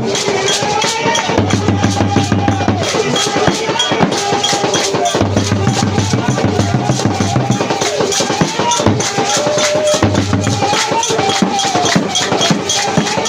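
Upbeat music with a busy drum and percussion beat, a repeating bass line and a melody over the top.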